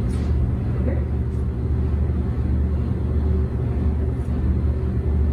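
A steady low mechanical hum with no change in pitch or level.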